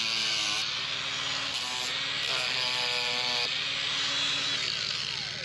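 Machinery running with a steady hiss and a whine that rises and falls in short spells, typical of barbed wire being wound onto a roll. A falling whine near the end, then the sound drops away.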